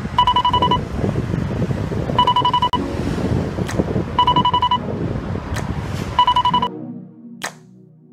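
City street traffic at a busy intersection with a high electronic beep, each about half a second long, repeating four times about every two seconds. Near the end the street sound cuts off and synth music begins.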